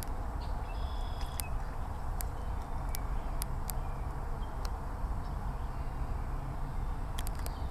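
Outdoor ambience: a steady low rumble with scattered sharp clicks and a few faint, short high chirps, the clearest within the first second and a half.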